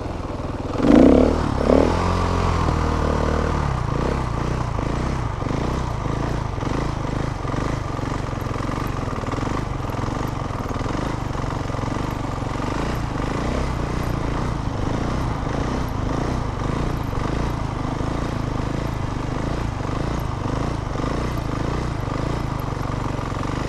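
Motorcycle engine revved hard about a second in, then running steadily under riding.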